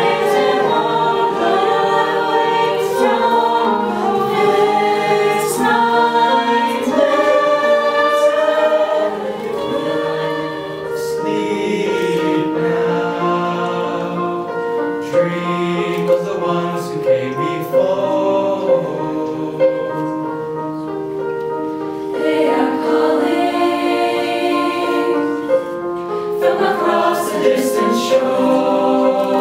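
Mixed choir of men's and women's voices singing together in parts.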